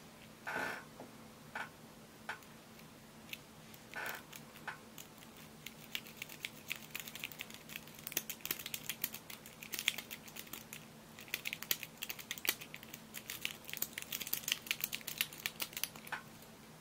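Lock picks working a euro profile pin-tumbler cylinder: a tension wrench and hook pick scraping and clicking against the pins. A few separate clicks come first, then a dense run of rapid small ticks for most of the rest, which stops shortly before the end.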